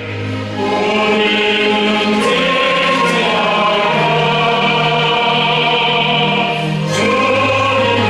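Church choir singing a hymn with an amateur orchestra accompanying, in long held chords that change twice.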